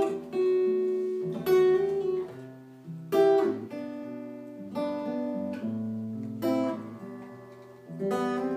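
Acoustic guitar strumming chords without vocals, one strum about every one and a half seconds, each chord left to ring and fade.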